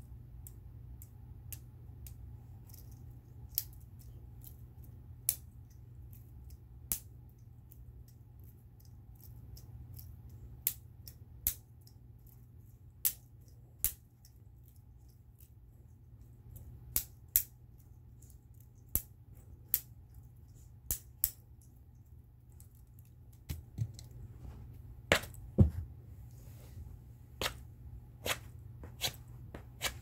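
Sharp clicks and taps at irregular intervals over a steady low hum. They come a few seconds apart at first and more often in the last third, where the loudest click carries a low thump.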